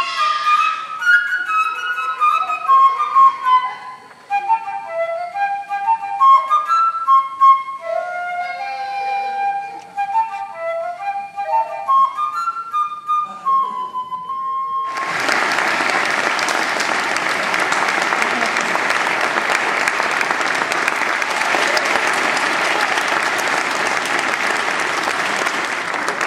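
Solo transverse flute playing a melody of short separate notes, ending on a held note about halfway through. An audience then breaks into steady applause.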